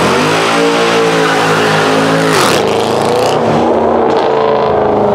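Mercedes C63 AMG estate's V8 accelerating hard, the revs rising and held high. About two and a half seconds in there is a brief sharp break, and then the revs climb again.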